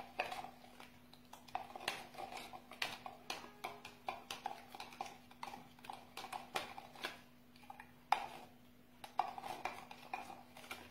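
Teaspoon stirring yeast dissolved in milk in a plastic jug: light, irregular clicks and taps of the spoon against the jug, several a second, over a faint steady hum.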